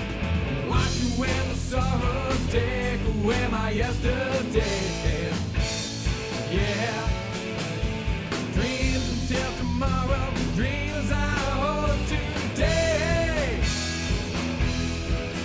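Background rock music with a singing voice over a steady drum beat.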